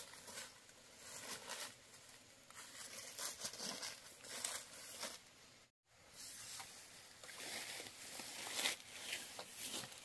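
Irregular rustling and crinkling noises, broken by a moment of complete silence a little past halfway.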